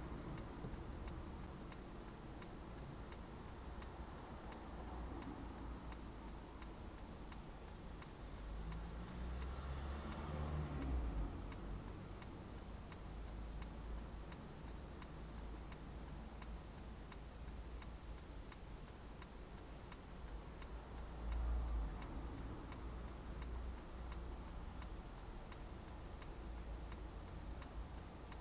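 Car turn indicator ticking steadily inside the cabin of a car stopped with its engine idling low underneath. A low rumble swells briefly about ten seconds in and again a little past twenty seconds.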